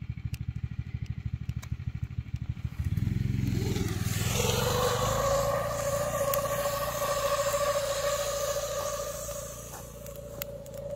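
Snowmobile engine running with a fast low throb, then revving up about three seconds in and holding a steady pitch, fading somewhat near the end.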